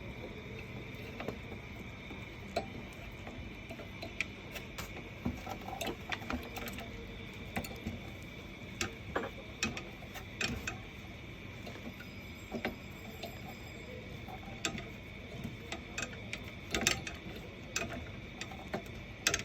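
Irregular light metallic clicks and ticks as an Allen key turns screws and the paper shredder's gear and blade parts are handled, over a faint steady high hum.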